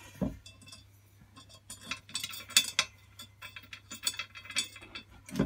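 Irregular small metallic clicks and clinks of a steel socket and nuts being handled and fitted around the pillar drill's column-flange bolts on its cast base, after a soft knock at the start.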